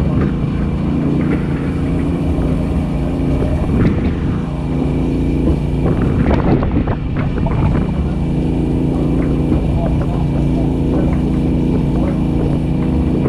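A grass-fire brush truck's engine running steadily, with scattered knocks and rattles from the truck as it moves over rough pasture, a cluster of them about six to seven seconds in.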